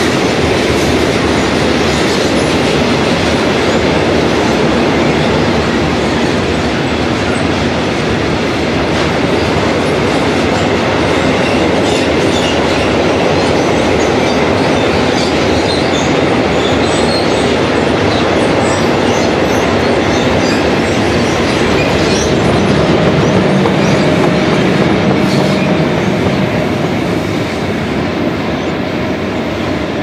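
A heavy freight train of covered sliding-wall wagons rolls past, its wheels clattering over the rail joints with scattered high wheel squeaks on the curve. Near the end a deeper electric hum swells as the pushing ÖBB 1144 electric locomotive at the tail goes by, then the noise starts to fade.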